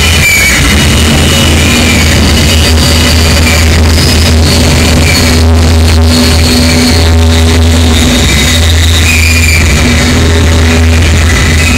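Noise music from a DIY oscillator with add-on capacitors, fed through a Line 6 DL4 and a Boss DD-20 Giga Delay pedal. A loud, unbroken low drone sits under sustained tones that come and go, with high whistling pitches that waver.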